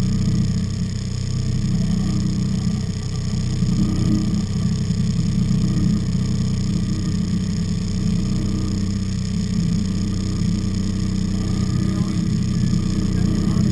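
Charter fishing boat's engine running steadily with a low drone, under an even hiss.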